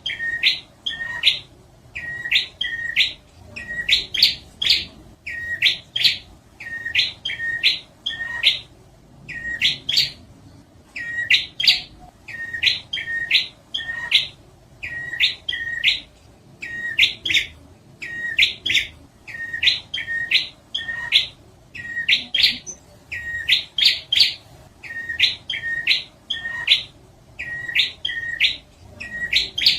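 Prinia (prenjak) song played as a bird-luring track: loud, sharp chirping notes in quick clusters of two or three, repeated roughly every second without a pause.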